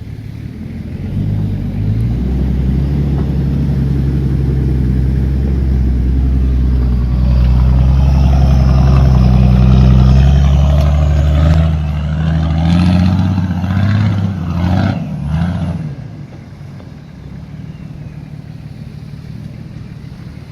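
Nissan Patrol Y61 2.8 TD6 straight-six turbo diesel running through a straight-through stainless steel exhaust, pulling away loud with a faint rising turbo whistle. The revs rise and fall a few times near the three-quarter mark, then the engine settles much quieter.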